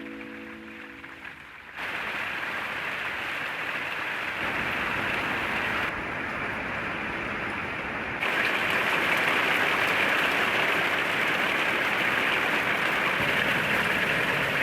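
Steady rushing noise of stormy weather, rain and wind, in a few clips cut together, each step a little louder. A short music phrase fades out in the first second or so.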